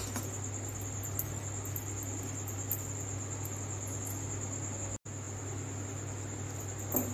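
Fried chilli poori pieces being tossed with a perforated steel ladle in a steel kadai: a few faint ladle clicks over a steady low hum and a constant high-pitched whine. The sound drops out for an instant about five seconds in.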